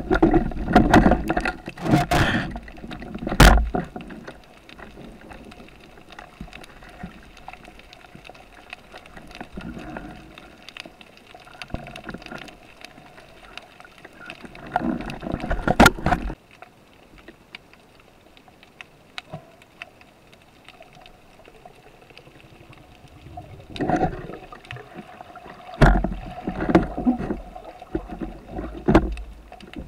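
Underwater sound picked up by a diver's camera: bursts of rushing, bubbling water and knocks of handled gear, with a sharp knock about three and a half seconds in and quieter stretches between.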